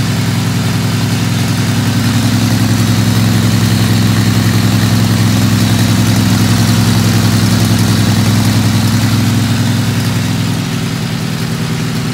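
Briggs & Stratton Vanguard V-twin engine on a dyno stand running steadily as it warms up before a dyno pull. The note eases down slightly about ten and a half seconds in.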